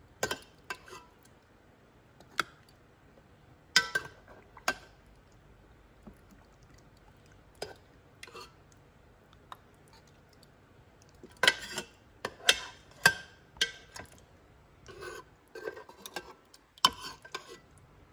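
A serving spoon clinking and scraping against a glass bowl of stew as it is stirred and served: scattered sharp taps with a brief ring, busiest about twelve seconds in and again near the end.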